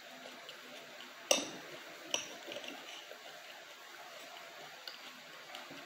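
Knife and fork clinking against a glass plate while food is cut and eaten, with soft chewing sounds between. One sharp clink comes about a second in, a lighter one a second later, and a faint one near the end.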